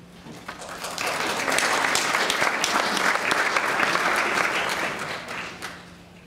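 Audience applauding, building up over the first second, holding for about four seconds and then dying away.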